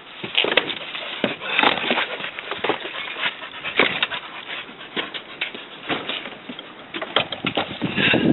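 Rear seat, boards and cushions of a small campervan being moved and folded out into a bed: a run of irregular clunks, knocks and rustling.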